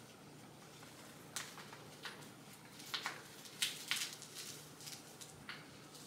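Scattered soft clicks and rustles of a foam crutch pillow being pulled and pressed onto the underarm rest of a crutch.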